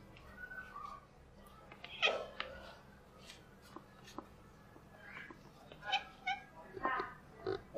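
Ginger tabby cat meowing while begging for food: one loud meow about two seconds in, then a quick run of four shorter meows near the end.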